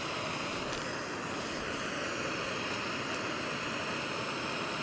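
Handheld gas blowtorch flame hissing steadily as it heats potassium chlorate in a clamped test tube to melt it.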